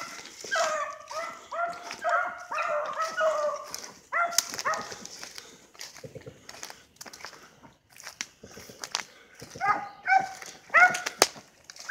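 Beagles baying on a rabbit's trail: a quick run of yelping bawls over the first four seconds or so, then a lull with scattered crackles, then more baying near the end.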